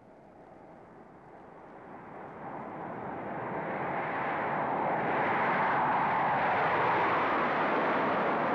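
A pitchless rushing noise that swells from faint to loud over the first four seconds and then holds steady.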